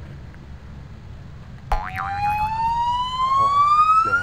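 A whistle-like tone gliding steadily upward in pitch for about three seconds, starting abruptly with a click about a second and a half in and cutting off just as sharply at the end. It sounds like an added comic sound effect, over a low steady rumble of traffic.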